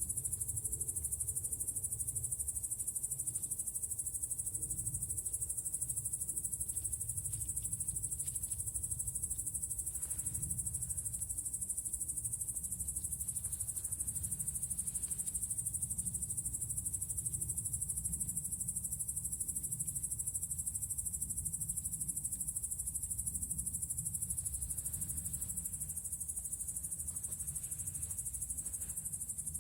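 A steady high-pitched insect-like trill over a low rumble, with a few faint short sounds now and then.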